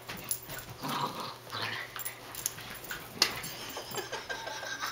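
An Italian greyhound and a miniature dachshund play-fighting: short dog vocal sounds among scuffling and scattered clicks, with one sharp knock about three seconds in.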